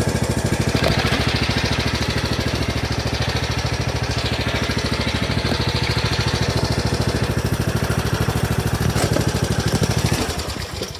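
Riding lawnmower's small engine running steadily, with an even rapid firing pulse. About ten seconds in it dies and winds down, cut out by the seat safety switch when the rider is no longer sitting on the seat.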